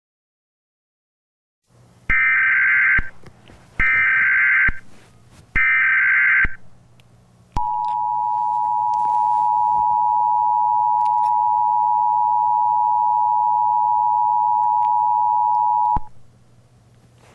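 Emergency Alert System tones: three screechy SAME header data bursts of about a second each, then the steady two-tone EAS attention signal held for about eight seconds before cutting off sharply, announcing an emergency alert message. A faint low hum sits underneath.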